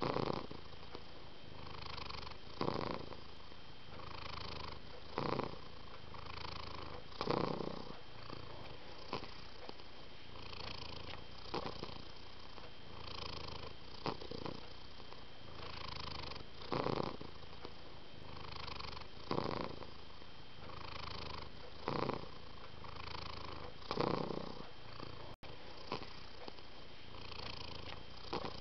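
Domestic cat purring steadily, the purr rising and falling with each breath in and out, with a louder pulse about every two and a half seconds.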